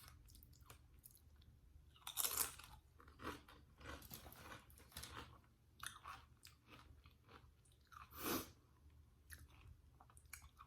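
Close-miked eating: Doritos chips being bitten and chewed, with irregular crunches, the loudest a little after two seconds in and again about eight seconds in.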